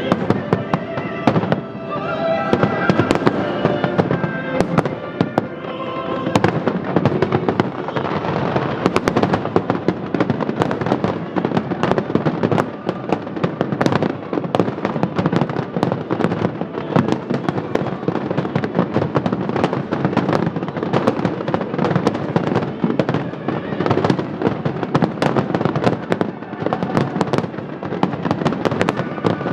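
Aerial fireworks going off in a dense, continuous barrage: many bangs and crackles every second. Music plays alongside for the first six seconds or so.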